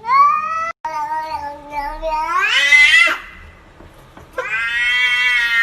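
Domestic cat giving long, drawn-out meows: the first rises in pitch and breaks off about three seconds in, and a second long meow starts about a second later.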